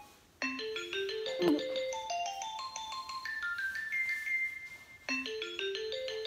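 iPhone ringtone: a melody of bell-like mallet tones climbing step by step, starting about half a second in and fading out near five seconds, then starting over just after.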